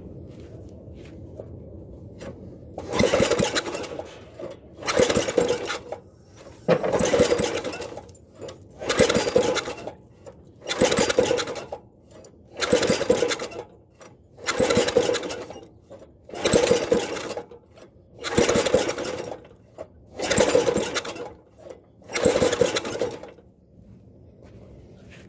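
Single-cylinder walk-behind-tractor engine being cranked by its recoil pull-starter eleven times, about one pull every two seconds, with a compression gauge in place of the spark plug: a hot compression test, so the engine turns over without firing.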